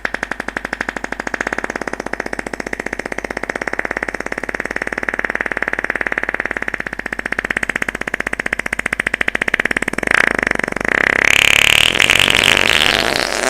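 A long fart sound effect made of rapid pulses. About ten seconds in it gets louder and higher, with a wavering pitch.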